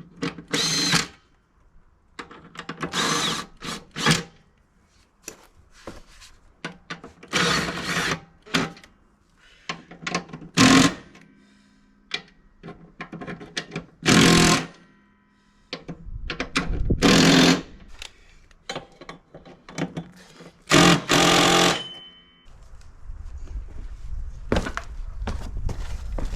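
A handheld power tool run in repeated short bursts, each about one to two seconds, with pauses between.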